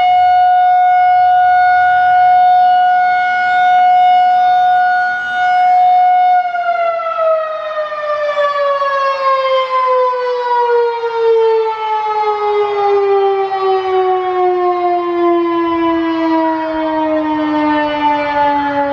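Federal Signal 2001-SRNAC (Gen 2) rotating outdoor warning siren sounding its alert tone, holding one steady pitch and then, about six seconds in, winding down with the pitch falling steadily through the rest. The loudness swells and dips slightly as the siren rotates, and the wind-down marks the end of the short alert test signal.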